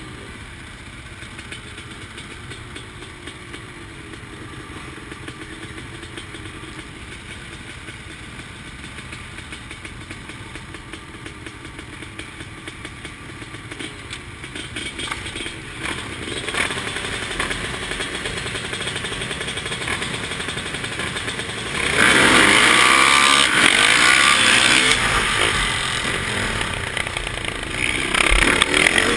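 A line of dirt bikes, among them a 2013 KTM 450 XC-F four-stroke single up close, idling at a race start. The engines then build, and at the start of the race they are opened up hard all at once, with a loud surge of acceleration that eases off and comes back near the end.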